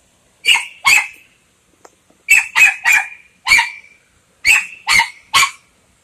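A dog barking loudly: nine short, sharp barks in three quick bursts of two, four and three.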